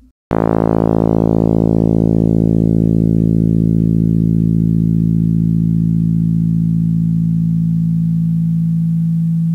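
Computer-synthesized tone from a discrete summation formula with upper and lower sidebands (220 Hz carrier, 55 Hz modulation frequency), starting about a quarter second in. It begins bassy and rich in evenly spaced overtones, and the upper partials die away steadily as it converges toward the plain 220 Hz carrier.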